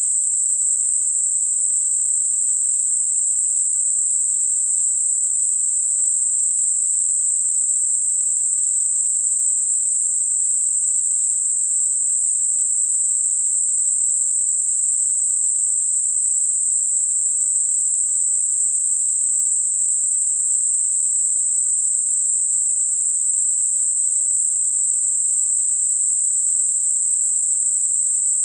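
Synthetic Gaussian narrow-band noise centred at 8 kHz: a steady, very high-pitched hiss with nothing lower in it, made as a masker for high-pitched tinnitus.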